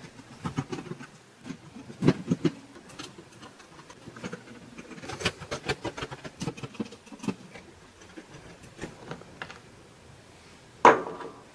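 A small screwdriver undoing the rear-panel screws of a Dell Latitude 5490 laptop: irregular light clicks and scrapes of the bit in the screw heads and against the plastic base, with a sharper knock near the end.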